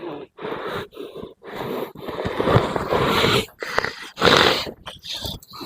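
A person in trance growling and rasping in harsh, breathy bursts, one after another with short gaps, loudest in the middle: the voice of a medium into whom the healer says the cause of the cough has been drawn.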